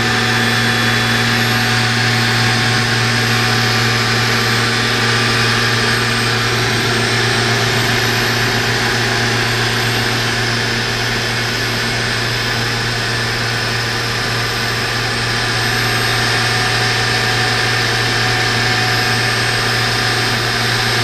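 Citizen M16 CNC Swiss-type lathe with its spindle running at a steady speed: an even machine hum with a strong low drone and fainter higher tones over a steady hiss, unchanging throughout.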